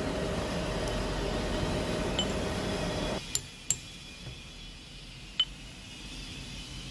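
Machine-shop machinery running with a steady low hum that cuts off abruptly about three seconds in. Then three sharp metallic clinks of metal on metal, two close together and the third about two seconds later.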